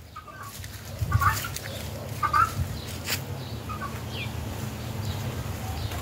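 Chickens clucking, a few short calls spread over several seconds, over a low steady hum.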